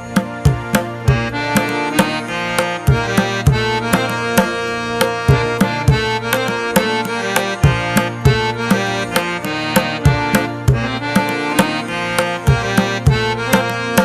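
Background music: quick hand-drum strokes, about three to four a second, under a held melody with many overtones.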